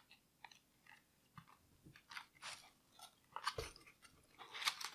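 Rustling and scraping of the packaging around a boxed picture frame as it is handled and opened: a string of short, soft scuffs, one low knock a little past halfway, and the loudest rustle near the end.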